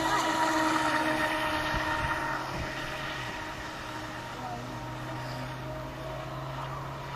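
Radio-controlled model powerboat's motor running at speed as the boat skims across the water, a steady buzzing drone that fades somewhat after about two and a half seconds as the boat moves away.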